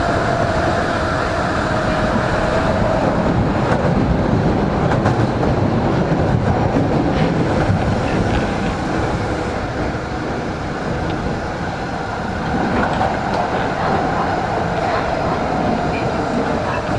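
Osaka Municipal Subway Series 10 train running, heard from inside the car: a steady rumble of wheels on rail. A faint whine fades out over the first few seconds and comes back near the end.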